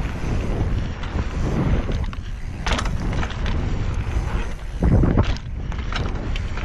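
Wind buffeting the microphone during a mountain-bike ride down a dirt trail, over a low rumble of tyres on dirt. A few sharp rattles come around the middle.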